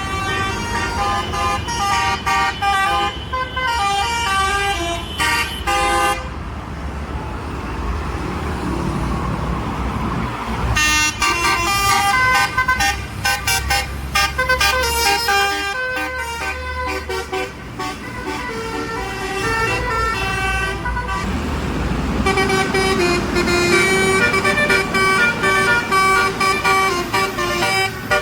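Indonesian buses' telolet "basuri" multi-note musical horns playing quick tune phrases, note after note in rapid steps, over the low rumble of the bus engines. The tunes break off for a few seconds about six seconds in, then start again, with a lower, steadier run of notes near the end.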